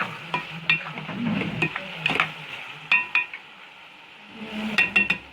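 Minced meat and onions frying in a pan while being stirred, a spoon clinking and scraping against the pan in irregular strokes, with a quick run of clinks near the end, over a faint sizzle.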